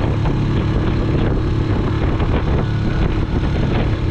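Small Honda four-stroke outboard motor running steadily under way, a constant engine drone with rushing wind and splashing water over it.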